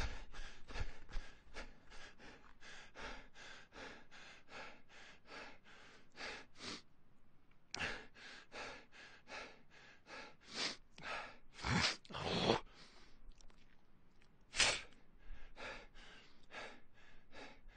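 A person breathing hard while running: quick, even in-and-out breaths, about three a second. There is a short break about seven seconds in, and a few louder, deeper breaths come later.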